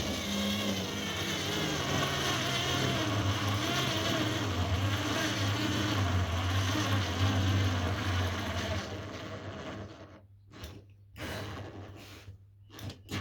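Fieldmann FDS 10102-A 3.6 V cordless screwdriver running under load as it drives a screw, its motor note wavering. It is straining: the screw only almost goes in. The motor stops about ten seconds in, followed by a few light knocks.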